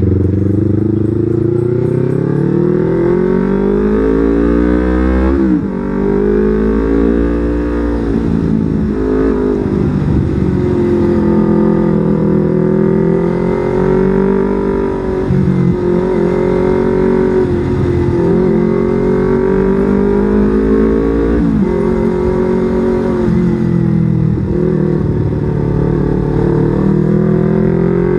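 Yamaha R25's 249 cc parallel-twin engine under way, revs climbing, then a sudden drop at a gear change about five and a half seconds in; after that the revs keep rising and falling as the bike accelerates and eases off.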